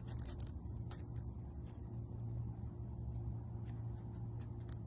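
Faint rustling and crinkling of a thin quilling-paper strip being handled and gently pulled through its loop, with scattered small ticks, over a steady low hum.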